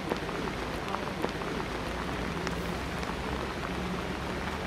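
Steady rain falling, with scattered sharp ticks of single drops over a steady low rumble.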